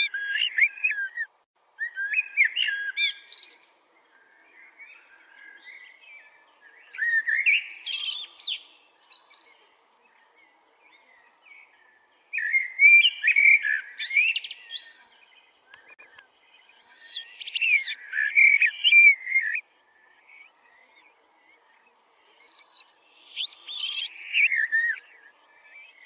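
Koel (Indian cuckoo) calling in repeated bouts: about six bursts of quick, rising, shrill notes, each lasting two to three seconds and coming roughly every five seconds, over a faint steady background hum.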